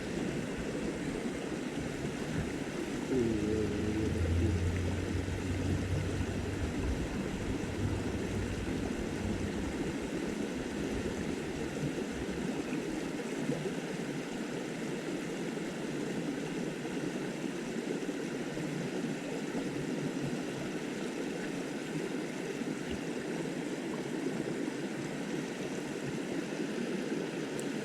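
Small stream's water rushing steadily. A faint low hum joins it for a few seconds near the start.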